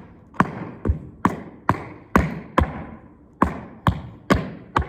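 Metal taps on tap shoes striking the floor during tap time steps: sharp, evenly spaced clicks about two a second, with a short break about three seconds in.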